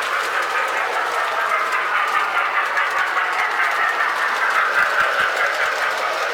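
Lionel O-gauge toy trains running on a three-rail layout: a steady rolling noise of wheels and motors on the track.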